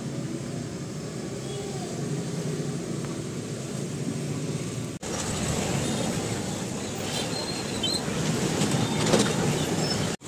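Street traffic noise: a steady din of passing vehicles. It cuts off briefly about halfway through, comes back louder, and has a few short high-pitched squeals near the end.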